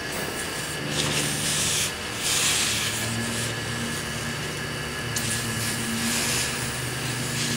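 Aerosol spray can hissing in several bursts, the longest about a second, sprayed onto a freshly made weld to cool it quickly.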